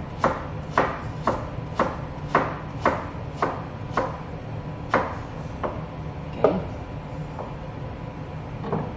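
Chef's knife slicing carrot rounds on a plastic cutting board, each stroke a sharp knock of blade on board. The knocks come about twice a second, then slow and thin out after about five seconds.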